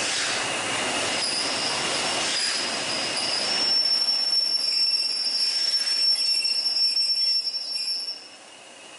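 Wheel squeal from a slow-moving train rolling past: the tender of steam locomotive 60163 Tornado and the coach behind it, towed rather than working under steam. A high steady squeal runs over the rolling noise, a second, higher squeal joins about a second in, and the noise falls away sharply near the end.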